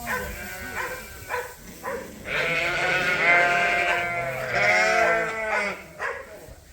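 Sheep bleating: two long, loud, wavering calls one after the other, after a few short sounds.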